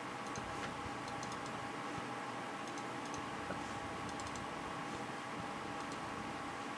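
Computer mouse buttons of a 1995 Microsoft PS/2 mouse clicked in quick pairs, double-clicks, several times over a few seconds. A steady low hum with a few fixed tones runs underneath.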